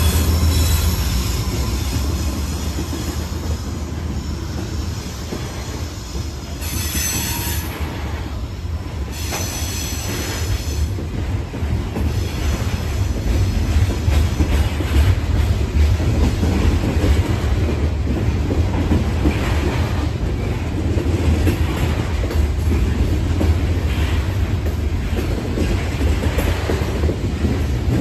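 Loaded coal hopper cars of a CSX freight train rolling past, with a steady low rumble of wheels on rail and a rhythmic clacking. High-pitched wheel squeal comes in short spells about a third of the way in.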